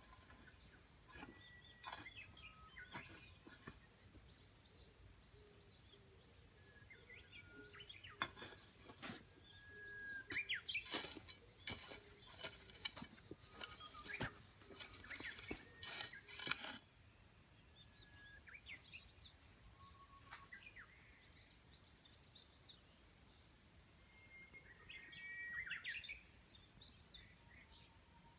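Birds chirping in short repeated calls over a steady high-pitched insect buzz, which cuts off about two-thirds of the way through. In the first half a small shovel scrapes and strikes the soil several times as it is worked into the ground.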